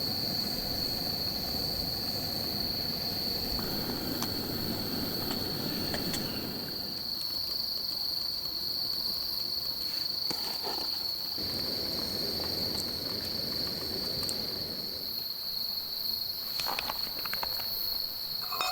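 Insects trilling steadily in one high, unbroken tone, over a low shifting rustle with a few sharp clicks.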